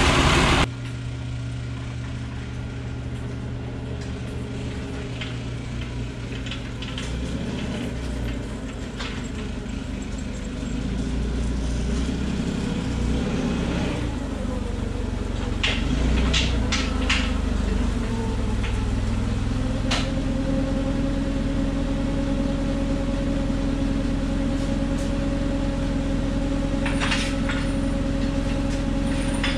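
LP-gas forklift engine running, getting louder and settling into a steady idle about two-thirds of the way in, with a few sharp metal clanks and rattles.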